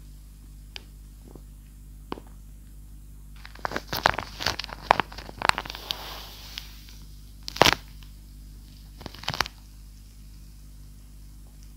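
Tape-covered paper crinkling and crackling as it is handled, in a dense run of crackles a few seconds in, then a sharp crack and a short flurry of crackles later.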